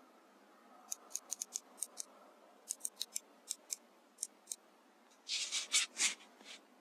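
A run of small, sharp clicks, about a dozen and irregularly spaced, then a short cluster of scraping sounds about five seconds in.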